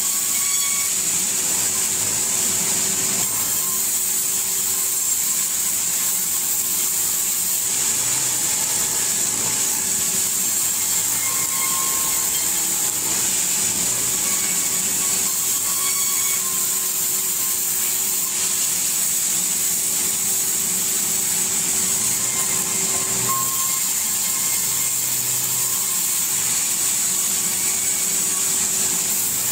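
Sawmill wood-cutting saw running steadily while planks are fed through it: a continuous hiss over a steady hum, with no break.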